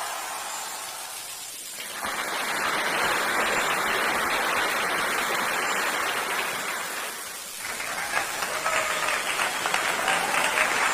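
Crowd applause: a dense hiss of many hands clapping that thins out briefly twice, with separate claps standing out in the last few seconds.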